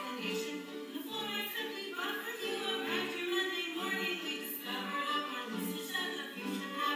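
A sung number from a stage musical: voices singing held notes over accompaniment.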